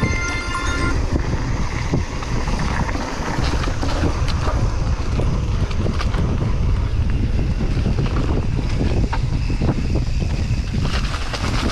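Wind buffeting the microphone of a mountain bike riding a downhill trail, with tyre noise and scattered clicks and rattles from the bike over rough ground. Music fades out about a second in.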